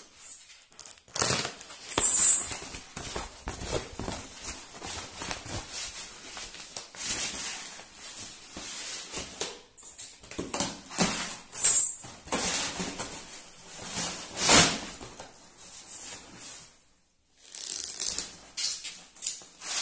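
Stretch-film-wrapped cardboard parcel being pulled and torn open by hand: irregular crinkling and rustling of the plastic film and cardboard, with a few sharper, louder tearing bursts about 2 and 12 seconds in.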